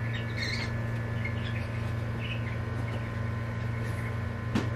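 Room tone: a steady low hum with faint, short high chirps scattered through it, and a single sharp click near the end.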